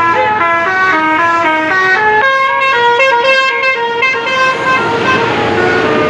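Telolet multi-note air horn on a Mercedes-Benz tour bus playing a quick tune of short stepped notes. At about four seconds in the tune stops and the rushing noise of the bus going by takes over.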